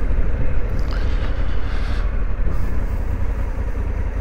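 Honda Africa Twin's 1084cc parallel-twin engine running steadily while the bike rolls along, an even low engine pulse under road and wind noise.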